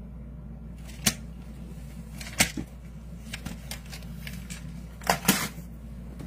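A few sharp clicks or taps, about four in all, two of them close together near the end, over a steady low hum.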